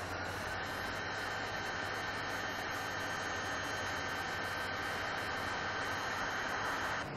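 Electric heat gun running, blowing hot air onto wiring: a steady airy hiss with a high fan whine, which cuts off abruptly near the end.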